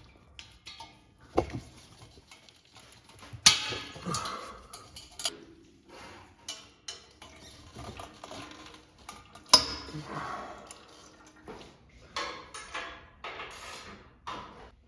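Wrenches and metal exhaust parts clinking and clanking as the exhaust is unbolted from a two-stroke ATV engine: irregular knocks and rattles, with sharp loud clanks about a second and a half in, at three and a half seconds, and again about two thirds of the way through.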